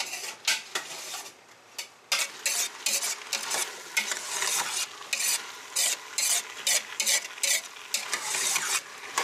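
Metal spoon stirring diced potatoes, onions and garlic sautéing in an enamel pot, scraping the pot in short strokes over the food's sizzle. A few scattered scrapes first, then from about two seconds in a steady rhythm of two to three strokes a second.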